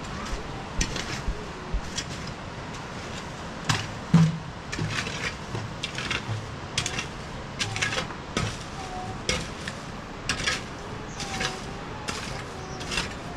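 A series of irregular knocks and clatters of hard objects, about one or two a second, with one louder knock about four seconds in.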